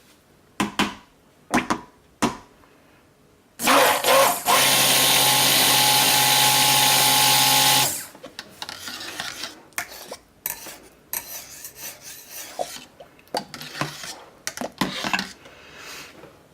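Stick blender running steadily for about four seconds in a pot of oils and lye solution, blending the soap batter to emulsify it. It is framed by knocks, clinks and scraping of a utensil against the pot.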